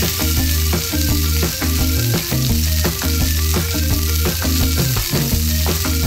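Dough strips sizzling steadily as they deep-fry in hot oil in a miniature aluminium wok. Background music with a bass line and a steady beat plays under it.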